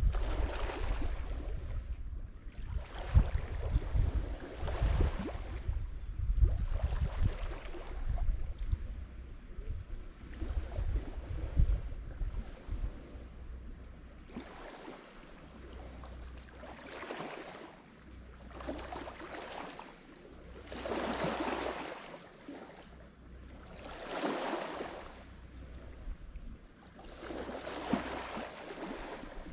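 Lake Michigan waves breaking and washing against the shore, one surge every two to three seconds. A low rumble of wind on the microphone runs under the first half and eases off about halfway.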